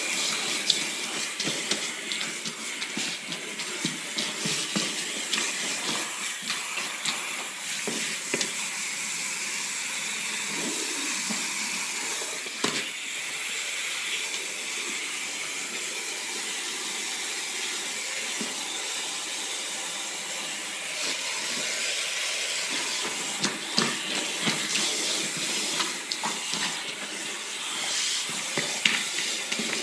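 Water spraying from a hose spray nozzle onto a wet rug: a steady hiss, with a few short knocks and splashes along the way.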